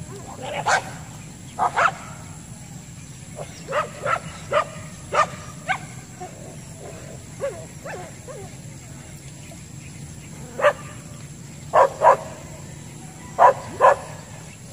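A dog barking repeatedly in short, sharp barks, many of them in quick pairs, with irregular pauses between, over a steady low hum.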